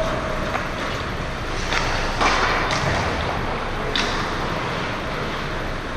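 Ice hockey play on a rink: skates scraping the ice and several sharp clacks of sticks and puck, about four in all, over a steady rushing noise.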